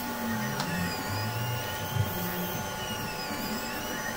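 Machine whine from stepper motors, likely a 3D printer running, with pitched tones that glide up and down as the motors speed up and slow down, over a steady faint hum. One sharp knock comes about two seconds in.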